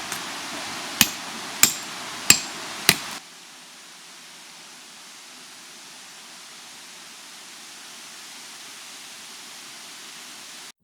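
A hammer striking a metal tent peg five times, sharp ringing blows about two-thirds of a second apart. After about three seconds the strikes stop abruptly, leaving a steady faint hiss.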